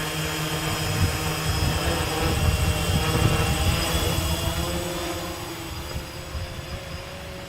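Gaui 500X quadcopter's electric motors and propellers whirring in flight, their pitch wavering slightly as it holds against gusty wind, with wind buffeting the microphone. The whir grows louder, peaking about three seconds in, then fades over the last few seconds.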